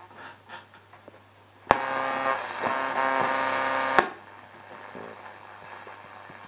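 Tesla Symfonic 603-A valve radio being tuned: faint tuning noise, then about two seconds in a loud steady sound of many held tones breaks in with a click, lasts about two seconds and cuts off with another click, leaving a low hiss and a steady low hum from the set.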